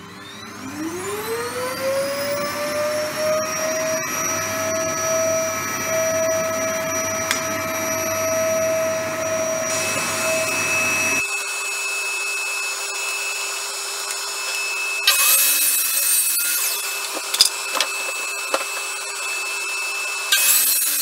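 An electric motor spins up with a rising whine, then runs at a steady pitch. Later a sliding mitre saw cuts through an OSB board twice, in short loud bursts.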